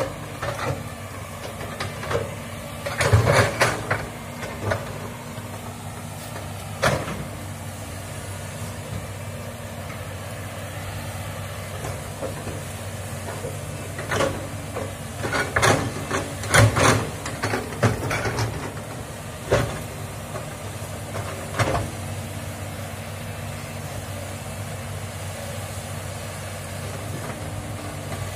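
Komatsu hydraulic excavator's diesel engine running steadily under load while it digs, with sharp knocks and clatter from the machine at work, loudest a few seconds in and again through the middle.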